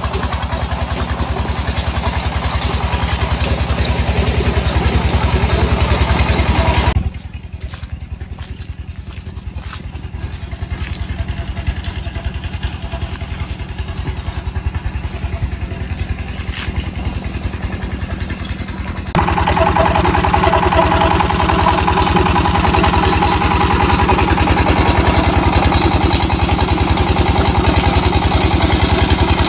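Small tube-well pump engine running steadily with a fast, even thumping, with water gushing into a concrete tank over it at first. A little after the first quarter the engine sounds fainter and further off, then about two-thirds in it is loud and close again.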